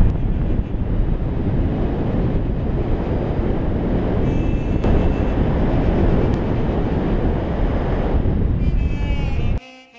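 Airflow of paragliding flight buffeting the pilot-mounted camera's microphone: a loud, steady rush of wind noise that cuts off suddenly near the end.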